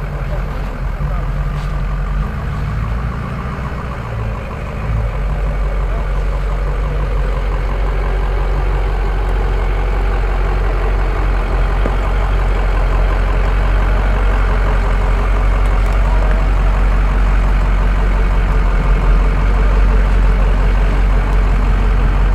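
Ford F-250 pickup's engine running at low revs as the truck crawls closer, growing gradually louder.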